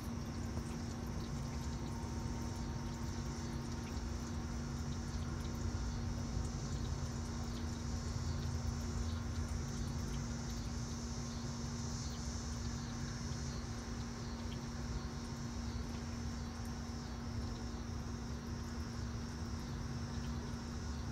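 Steady outdoor background sound: a constant low hum with a steady high-pitched buzz above it and a faint rumble.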